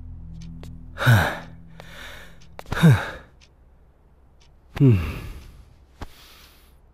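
A man sighing heavily three times, each a long breathy exhale that falls in pitch.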